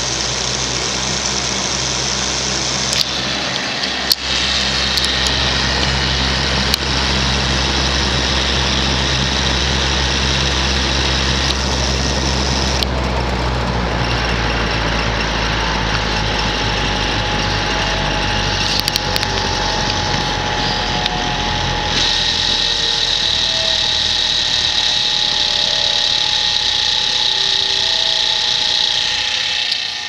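Vintage Korvettes (Frigid) 20-inch box fan with four metal blades running steadily: an airy rush over a buzzy motor hum, which the owner puts down to motor windings that probably need re-varnishing. About two-thirds of the way in the low hum thins and a higher steady whine comes forward.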